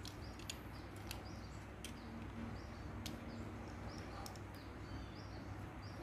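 Faint light clicks and taps from small remote-control parts, the LCD panel and its thin metal frame, being handled by fingers, over a steady low hum. Faint high chirps sound repeatedly in the background.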